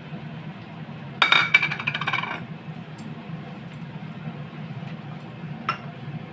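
A metal spoon clattering against a steel kitchen vessel in a quick run of ringing clinks lasting about a second, then one sharp tap near the end.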